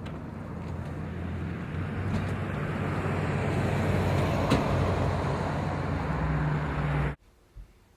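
A road vehicle's engine and tyre noise, a low rumbling hum growing steadily louder for about seven seconds, then cut off abruptly.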